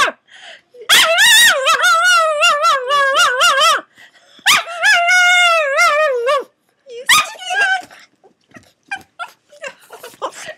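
A pug crying out excitedly at the doorbell: two long, wavering, high cries, then shorter cries and faint whimpers and yelps tailing off near the end.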